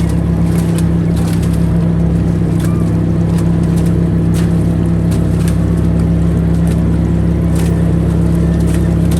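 Fishing boat's engine running at a steady pace, a loud even drone with a few faint clicks over it.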